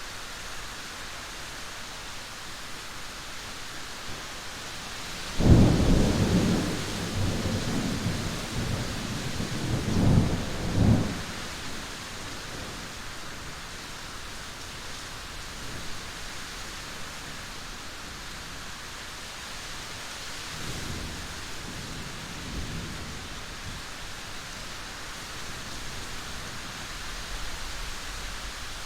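Steady rain in a thunderstorm. A sudden thunderclap about five seconds in rumbles on for several seconds, with two more loud peaks near ten and eleven seconds. A fainter roll of thunder follows around twenty-one seconds.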